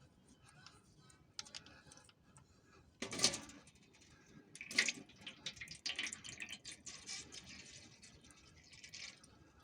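Old gearbox oil draining from the van's open drain plug and splattering into a container below, in irregular splashes and drips, the loudest about three seconds in and again near five seconds.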